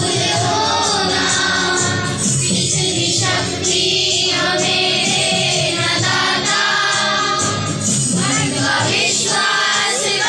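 A group of children singing a prayer together in unison.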